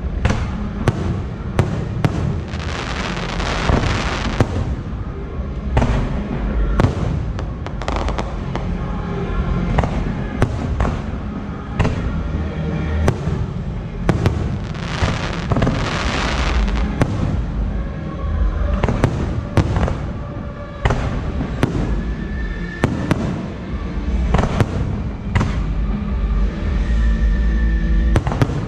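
Aerial fireworks display: shells bursting in rapid, irregular bangs over a constant low rumble. There are two stretches of dense crackle, one a few seconds in and one about halfway through.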